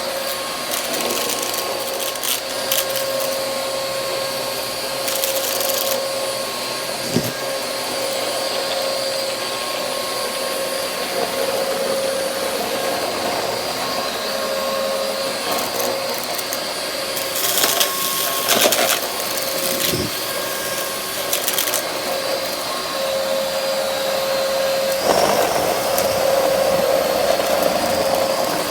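Vacuum cleaner running with a steady motor whine while sucking up dumped dirt and debris, with scattered clicks and rattles as particles hit the nozzle, a burst of them around two-thirds of the way through. The sound grows fuller and louder near the end.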